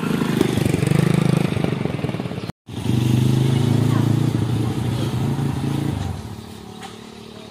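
Motorcycle engine running close by, loud and steady, dropping away about six seconds in.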